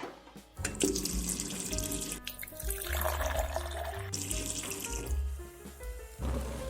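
Water running from a tap, starting about half a second in and stopping after about four seconds, over background music.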